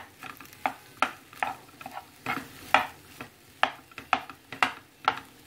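A spatula stirring and scraping boiled potato pieces around a hot non-stick kadai: a run of short knocks and scrapes about twice a second, over light sizzling of the oil.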